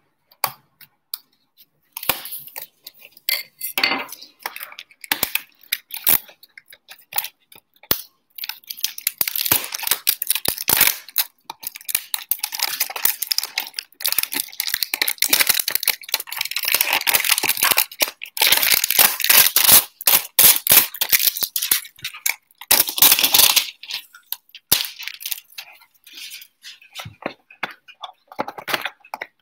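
Plastic shrink-wrap being slit and torn off a cardboard trading-card hanger box. Scattered clicks at first, then dense crinkling and crackling for about fifteen seconds, thinning near the end.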